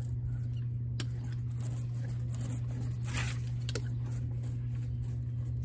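Hand ink roller rolled back and forth through tacky oil-based printing ink on a zinc plate, spreading the ink evenly, with a few faint rasps. A steady low hum runs underneath.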